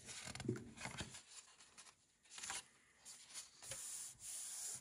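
Colouring-book page turned by hand with a paper rustle, then palms smoothing the new spread flat, a soft sliding hiss near the end.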